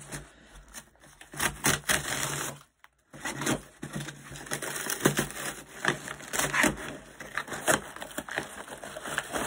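Cardboard box being opened by hand: irregular crackling, tearing and rustling of the cardboard and packaging, broken by a brief silent gap about three seconds in.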